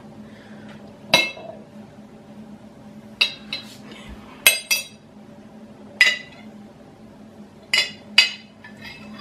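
Metal spoon clinking against the inside of a glass jar as coffee is stirred: about eight sharp, ringing clinks at uneven intervals.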